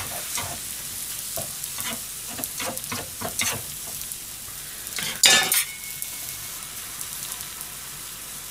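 Okonomiyaki frying in an iron pan with a steady sizzle, while metal spatulas scrape and tap against the pan several times over the first few seconds. About five seconds in comes one louder spatula scrape, and after that only the sizzle goes on.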